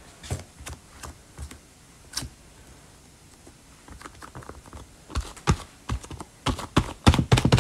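Hands patting and pressing air-dry foam clay down over a gumdrop form: a run of light taps and clicks, sparse at first and coming quicker and louder in the last couple of seconds.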